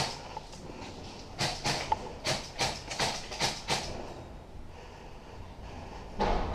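A run of quick, sharp knocks, about three a second, lasting a few seconds and then dying away.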